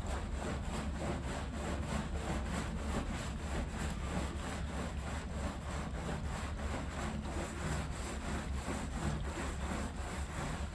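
A brush scrubbing a rug in quick back-and-forth strokes, about four a second, over a steady low hum.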